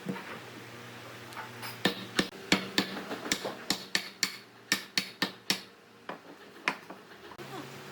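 Hand-tool knocking on wood: more than a dozen sharp, irregular taps over a faint steady hum, mostly in the middle of the stretch.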